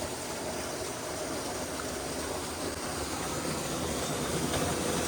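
Steady rush of a mountain stream's flowing water, growing slightly louder toward the end.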